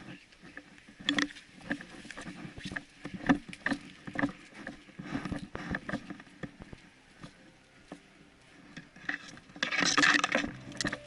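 Footsteps and movement through dry undergrowth: irregular crunches, snaps and knocks of leaves and twigs underfoot, with a louder, denser rustle of brushing through foliage about ten seconds in.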